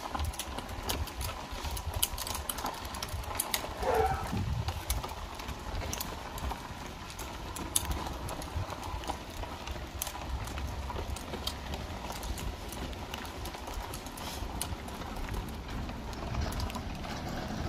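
Small wheels rattling and clicking unevenly over the joints of a paving-stone sidewalk, from a toddler's plastic balance bike and a pushed stroller, with a low wind rumble on the microphone. A brief pitched sound comes about four seconds in.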